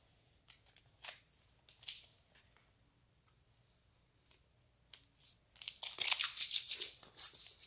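A card pack's wrapper being handled, torn open and crinkled by hand: a few light ticks and rustles at first, then a couple of seconds of loud, continuous crinkling and tearing near the end.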